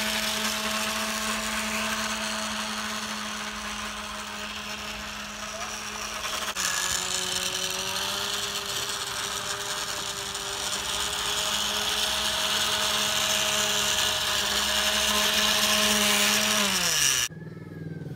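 Small electric drive motor and gears of a radio-controlled scale model two-wheel tractor whining steadily as it runs, then sliding down in pitch and cutting off about a second before the end.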